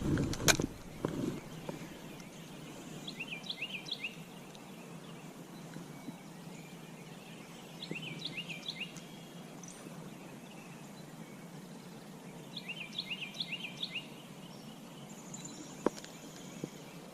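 A songbird singing a short phrase of quick, sliding notes, repeated about every five seconds, over a faint steady low hum. A sharp click comes just after the start and another near the end.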